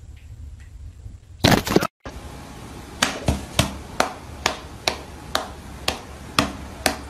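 Sharp taps repeating about two to three times a second as a person's hand and a cat's paw pat back and forth against each other. A short loud burst of noise comes about one and a half seconds in, before the tapping starts.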